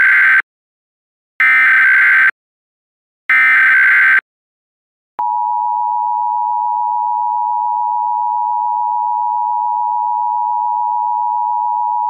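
Emergency Alert System tones: three short bursts of digital header data, the first already under way, then about a second of silence. The steady two-tone attention signal follows, a pair of close pitches sounded together, which marks the start of an alert.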